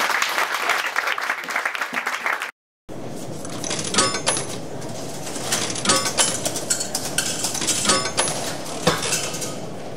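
Audience applauding, cut off suddenly about two and a half seconds in; then a steady clatter with sharp, ringing clinks about once a second.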